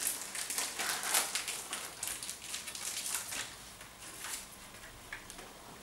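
Irregular rustling and crinkling, dense and crackly for the first three seconds or so, then a few sparser crackles as it dies away.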